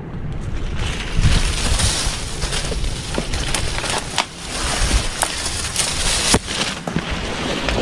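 Leaves and dry twigs rustling and crackling as someone pushes through brush on foot, many small snaps scattered through it, with uneven low rumble of wind and handling on the microphone.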